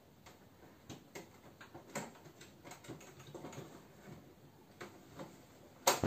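Siamese cat shifting its weight on the plastic casing of a wall-mounted air conditioner: faint, irregular clicks and scratches, with one sharper, louder click near the end.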